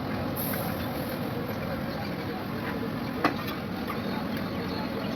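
Steady traffic noise from a road, with one sharp knock about three seconds in.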